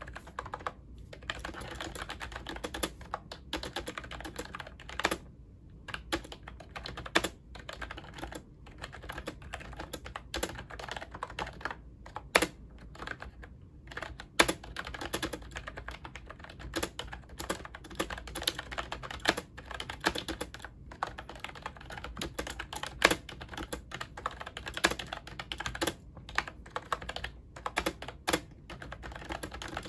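Fast, continuous typing on a compact pink Ajazz Bluetooth keyboard with round typewriter-style keycaps: a dense run of light key clicks with an occasional louder stroke.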